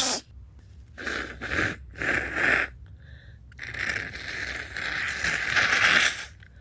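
The end of a sneeze, then a person with a cold sniffing three times in quick noisy breaths and blowing their nose in one long blow of nearly three seconds.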